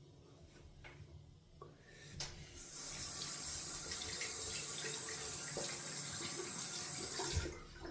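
Bathroom tap turned on about two seconds in, water running steadily into the sink for about five seconds, then shut off.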